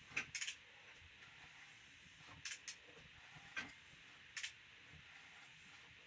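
A few light, sharp clicks and taps, some coming in quick pairs, from hands and parts being handled in an engine bay, over a faint steady hiss.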